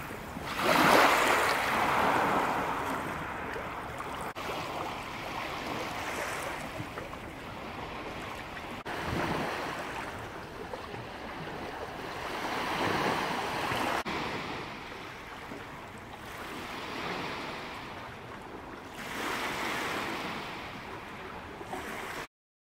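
Small lake waves washing onto a beach in a steady rush that swells and fades every few seconds. The sound cuts off suddenly near the end.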